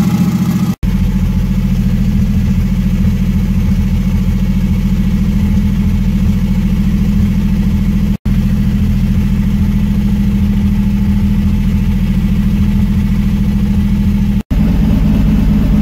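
Turbocharged 3400 V6 engine of a Pontiac Fiero running steadily without being revved, with an uneven beat: a misfire, on a newly installed, still untuned Microsquirt engine computer.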